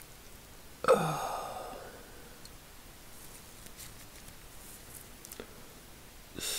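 A person's short sigh with a falling, voiced note about a second in, a sign of frustration while the detent ball of the ratchet keeps refusing to sit on its spring. Faint light clicks follow as small steel parts of the ratchet are handled.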